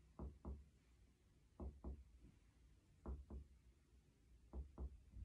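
Faint finger-on-finger chest percussion over the paravertebral region of a patient's back: four pairs of quick double taps, about a second and a half apart. This is comparative lung percussion, sounding both lungs at matching points.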